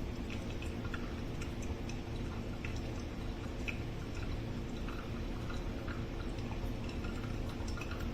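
Coffee dripping through a stainless steel pour-over filter into the carafe: small, irregular drips and ticks over a steady low hum.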